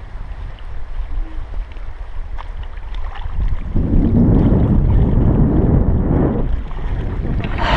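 Wind buffeting the microphone, with a stronger gust from about three and a half to six and a half seconds in.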